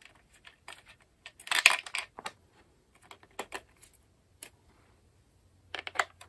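Hard plastic clicks and clattering from handling the weather station's housing and battery cover: scattered light taps, with a quick run of louder clicks about one and a half seconds in and another near the end.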